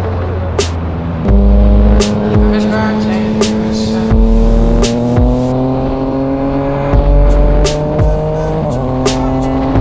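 Motorcycle engine pulling steadily, its pitch slowly rising, then dropping once near the end as it shifts up a gear. Background music with a bass beat and regular snare hits plays over it.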